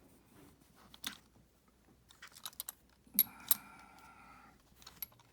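Small clicks and taps of plastic and metal parts of a model train tender being handled. About three seconds in come two sharper knocks, followed by a steady ringing tone that lasts about a second.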